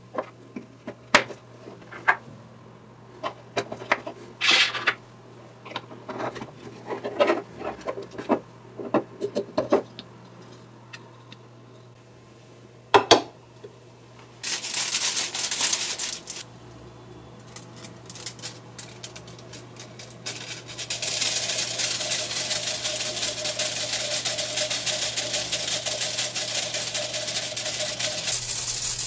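Small plastic clicks and taps as a homopolar motor is put together from a 3D-printed holder, an AA battery and disc magnets. About halfway a brief rattling rush, and from about two-thirds in a steady scraping rattle with a held tone underneath as the wire rotor spins, rubbing on its contacts.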